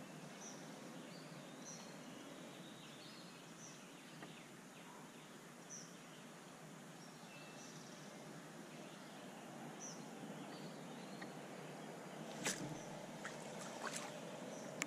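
Quiet lakeside ambience with faint birdsong: short high chirps every second or so over a steady outdoor hiss, and a few sharp clicks near the end.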